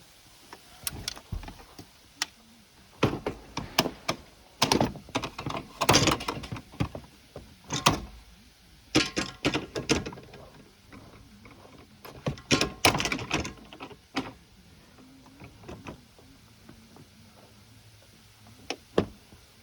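Metal awning mounting brackets and plates being handled and fitted on a van's roof rack: irregular knocks, clanks and taps, some ringing briefly, the busiest stretch in the middle, with a last knock near the end.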